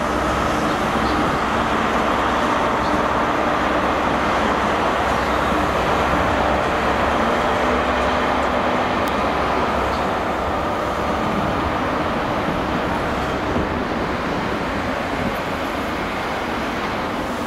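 Class 43 HST power car's diesel engine pulling a High Speed Train out of the station, over the steady rumble of its coaches rolling past. The sound eases slightly toward the end.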